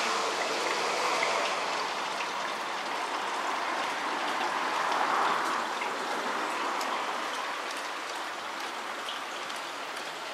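Large-scale (G gauge) model passenger train running on garden railway track: a steady rolling hiss of wheels on rails with a few faint clicks, growing fainter near the end as it moves away.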